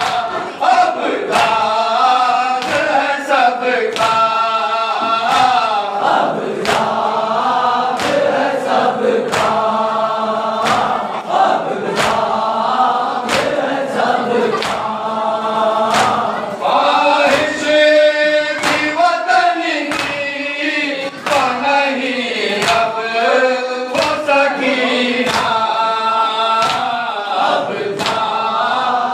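A group of men chanting a noha (Shia mourning lament) in chorus, with steady, rhythmic hand slaps of matam (chest-beating) keeping the beat at about one and a half strikes a second.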